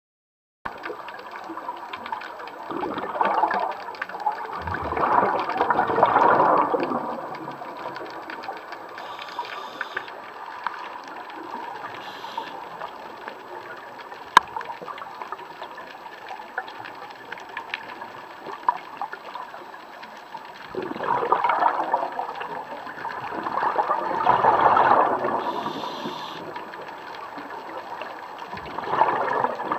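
Scuba regulator exhaust bubbles gurgling past the camera in surges a few seconds long, over a steady underwater hiss: two surges in the first seven seconds, then after a long lull three more. There is a single sharp click midway.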